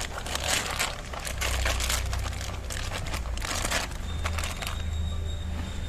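Plastic fish-transport bag crinkling in a series of rustling bursts as it is torn open for releasing guppies; the rustling dies down about four seconds in.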